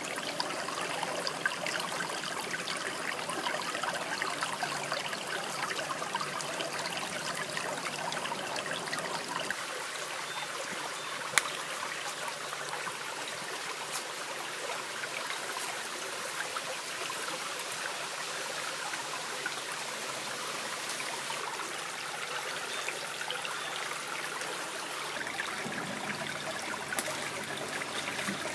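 Shallow stream trickling over stones, a steady rushing hiss, with a single sharp click about eleven seconds in.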